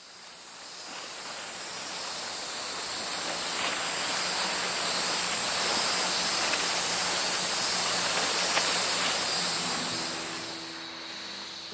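Steady rushing outdoor ambience with a thin high hiss on top, fading in over the first few seconds and easing off near the end as music starts to come in.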